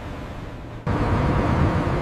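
Low, steady rumble of heavy ship engines under a wind-like hiss, jumping suddenly louder a little under a second in.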